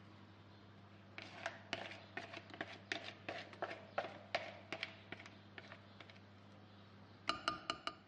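Thick batter pouring from a bowl into a glass baking dish: a run of irregular soft taps and plops for several seconds. Near the end come about five quick ringing clinks of kitchenware against the glass dish.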